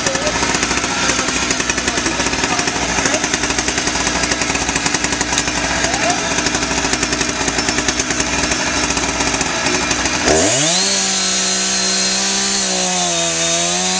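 Two-stroke chainsaw idling, then throttled up suddenly about ten seconds in to a high, steady full-throttle whine that holds until near the end.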